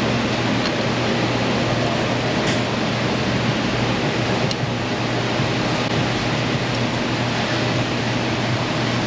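Steady rushing noise of a running fan or blower, with a constant low hum under it and a few faint clicks about a second in and again near the middle.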